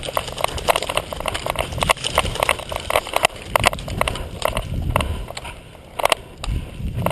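Quick footsteps on dirt and brush, with gear rattling, about three to four steps a second; they slow and thin out after about four and a half seconds.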